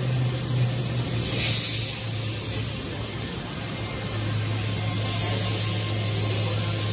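Steady low machine hum in a workshop, with a short burst of hiss about a second and a half in and a steady hiss from about five seconds in.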